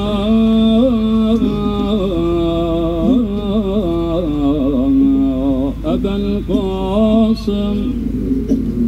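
A single voice singing a slow melody in long held notes with wavering ornamental turns. It stops about eight seconds in.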